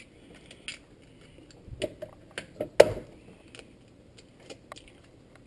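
Eggs being cracked into a stainless steel bowl: a cluster of sharp taps and clicks of shell against metal, loudest about three seconds in, with smaller clicks of shell and bowl around it.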